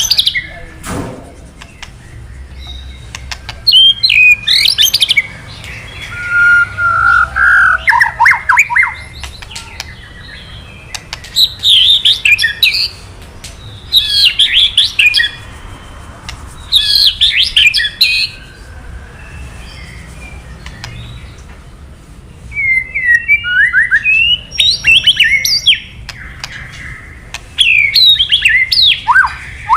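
White-rumped shama (murai batu) giving its 'kretekan' call. It comes in bursts of about a second of quick, sharp, sliding crackling notes, repeated about seven times with short pauses between them.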